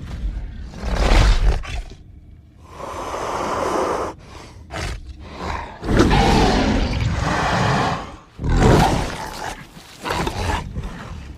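Film sound effects of dinosaurs roaring and growling: several loud, rough roars with deep rumble beneath, the longest about six seconds in and another short loud one just before nine seconds, with quieter snarling between.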